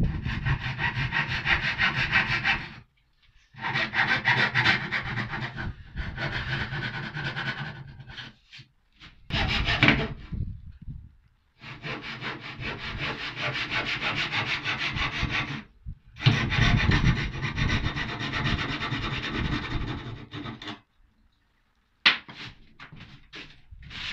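Handsaw cutting the shoulders of a tenon in 9mm plywood: runs of quick back-and-forth strokes, stopping briefly between runs, with a few short scrapes near the end.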